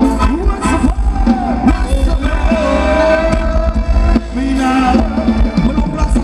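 Live Thai ramwong dance music from a band: a steady low beat under a bending melodic line.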